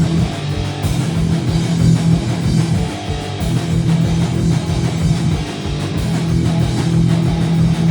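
Live punk band playing an instrumental passage: loud, distorted electric guitar chords over bass and drums, with no singing.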